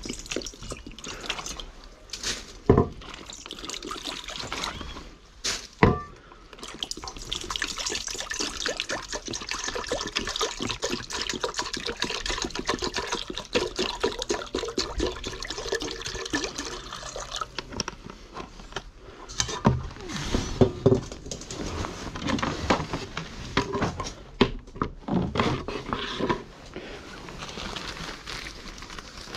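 Water pouring from a plastic drink bottle into a stainless steel bowl for about ten seconds. Two sharp knocks come before the pour, and clattering handling noises follow it.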